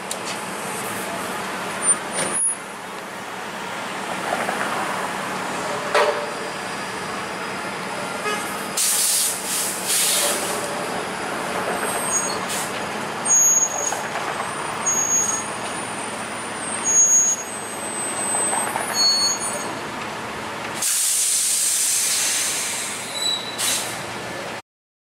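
A Toronto Flexity Outlook streetcar rolling slowly past amid street traffic, with brief high-pitched squeals and a few sharp clunks. Near the end comes a long burst of air hiss, and then the sound cuts off suddenly.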